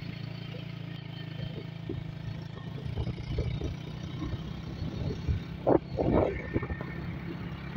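Motorcycle engine running steadily, then pulling along the road with a rougher rumble. Wind buffets the microphone in gusts from a few seconds in.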